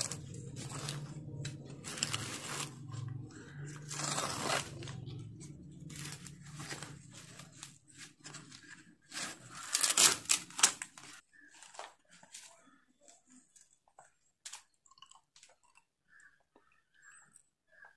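Green husk leaves being torn and peeled off a fresh ear of corn by hand, crisp tearing and crunching strokes, loudest about ten seconds in, fading to a few small crackles after that.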